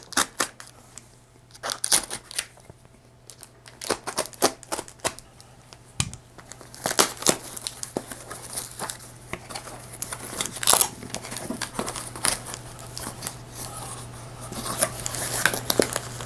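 Packaging being unwrapped by hand: irregular crinkling, rustling and tearing of the wrapping around a replacement robot-vacuum wheel, busier in the second half.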